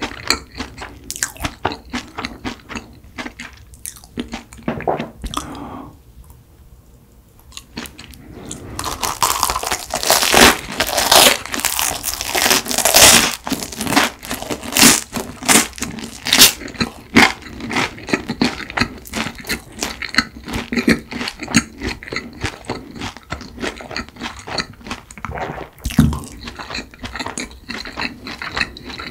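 Close-miked mouth sounds of chewing and biting crusty garlic bread: irregular crunches and wet chewing. There is a short lull about six seconds in, then the loudest, densest crunching through the middle.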